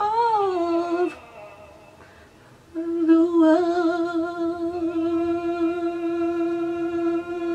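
A woman singing solo: a short falling phrase, then after a brief pause one long held note with a slight wobble.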